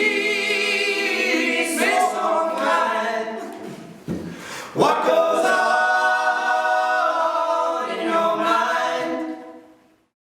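A group of voices singing held a cappella harmony chords, with a short break about four seconds in before a second long chord that fades away near the end.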